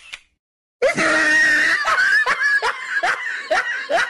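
A loud high-pitched scream about a second in, running straight into rapid rhythmic laughter, about two to three bursts a second.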